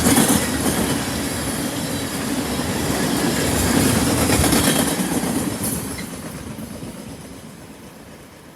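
Freight train cars rolling past on the rails: a steady rumble with the clatter of wheels over rail joints, fading away over the last few seconds as the train moves off.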